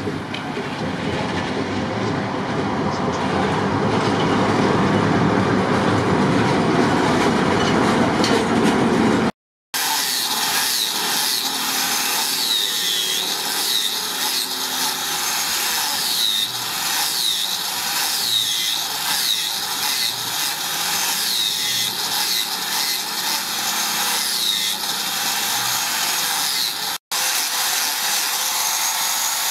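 For about the first nine seconds, street background noise with a traffic rumble. After a brief cut, an electric angle grinder with a sanding disc grinds wood in a steady hiss, its high whine dipping and rising again about once a second as it is pressed into the wood.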